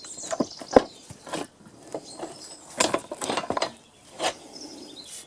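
Irregular metallic clicks and knocks from steel track parts being adjusted while the V-piece of a set of railway points is reworked to a narrower angle.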